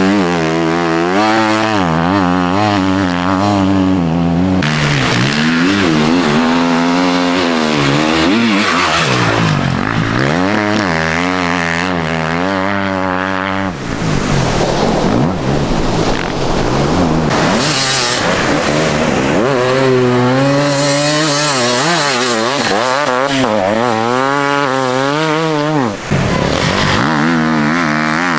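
Enduro motorcycles revving hard under load, the engine pitch climbing and dropping again and again as the riders accelerate, shift and back off for turns.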